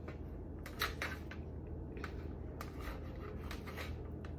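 Hands unrolling and pressing soft cinnamon roll dough into a metal baking pan: faint rustling with a few light, scattered taps and clicks.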